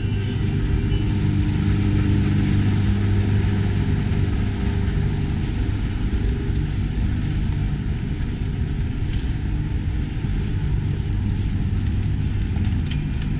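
Steady city road traffic, with vehicle engines making a constant low hum.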